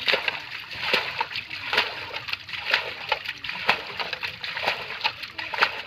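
A long-handled spade working in wet, sloppy mud, each stroke a wet splat, about once a second.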